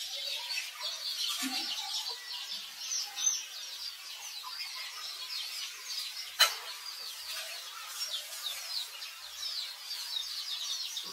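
Chorus of many small birds chirping: short, high, downward chirps overlapping without pause. A single sharp click about six and a half seconds in.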